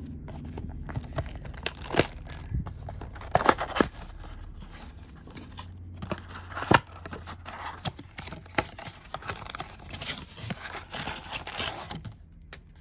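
Trading-card pack wrappers being torn and crinkled, with sharp clicks and taps of cards being handled, louder snaps about 2, 3.5 and 7 seconds in.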